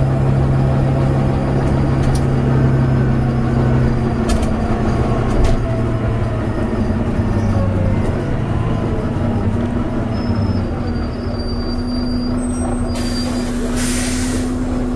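Volvo B9TL double-decker bus engine running under way, heard from on board. Its note drops about four seconds in and changes again about eleven seconds in. A loud hiss of compressed air comes near the end.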